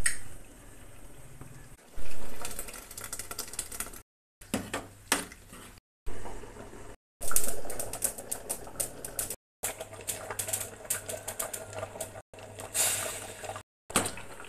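Pot of sambar boiling on a stove: bubbles popping with a patter of small clicks, and a ladle scraping and clinking against the aluminium pot. The sound cuts out and restarts several times.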